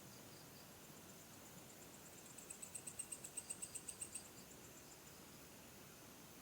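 Crickets chirping: a run of rapid, evenly spaced high chirps, about seven a second, for roughly two seconds in the middle, with a fainter insect pulsing before and after over low background hiss.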